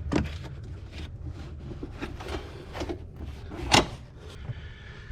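Hands and tools handling the thermostat housing and its parts: scattered light clicks and knocks, with a sharper knock a little before four seconds in, over a steady low rumble.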